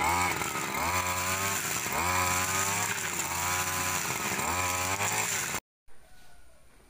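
Petrol string trimmer running and being revved up and back down about five times while cutting grass. It cuts off abruptly near the end.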